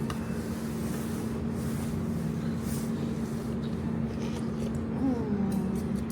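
Steady low background hum with a constant droning tone, with a short sound falling in pitch about five seconds in.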